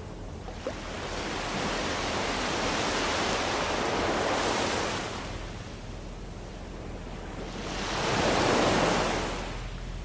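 Small waves breaking and washing up a sandy beach, in two surges: one building from about a second in and fading by about five seconds, and a second, louder one near the end.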